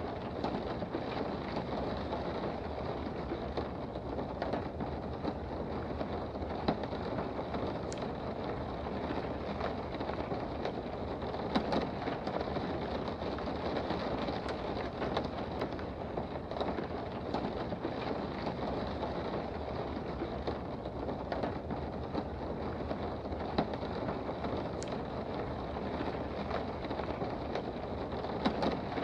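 Steady rain heard from indoors: a continuous patter with occasional sharper drops.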